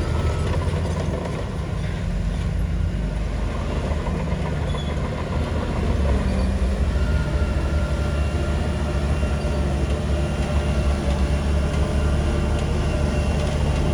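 Heavy diesel engine of earthmoving machinery running steadily under load, growing louder about six seconds in.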